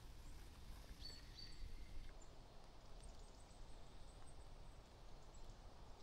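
Quiet outdoor ambience: a low, even rumble with a few faint, short bird chirps about a second in.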